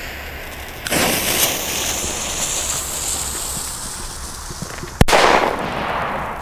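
A small firecracker's lit fuse hisses for about four seconds, then the firecracker goes off with a single sharp bang about five seconds in, followed by a short echo.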